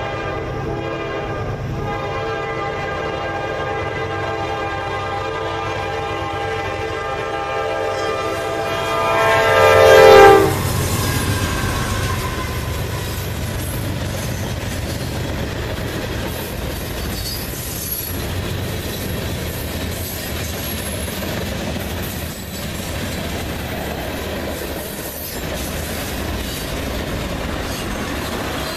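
Freight train's locomotive horn holding a long blast for the grade crossing, growing louder and cutting off about ten seconds in as the GE wide-cab diesel locomotives reach the crossing. The train then rolls by, with the steady noise of the engines and the wheels of the freight cars clattering over the rails.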